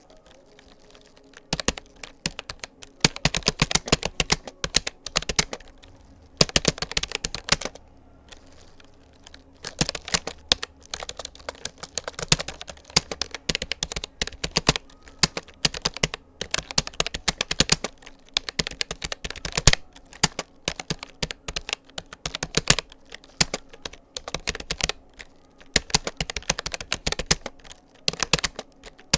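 Fast, continuous typing on a Rapoo computer keyboard, a rapid run of key clicks that starts about a second and a half in and pauses briefly about eight seconds in.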